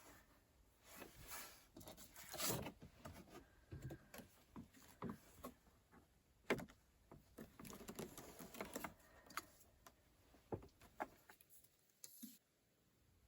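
A quiet, irregular run of light clicks, taps and knocks from small objects being handled, with the loudest knocks about two and a half and six and a half seconds in; it stops shortly before the end.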